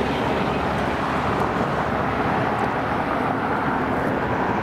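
A police motorcycle riding away, its engine hum fading out right at the start, leaving a steady, even roar of outdoor noise.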